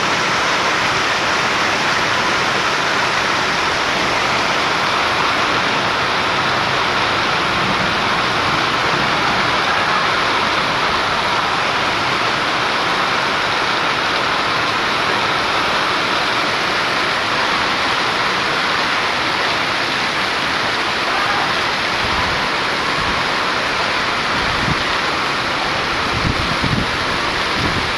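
Heavy rain mixed with hailstones pelting down, a steady dense rush. A few low thumps come in near the end.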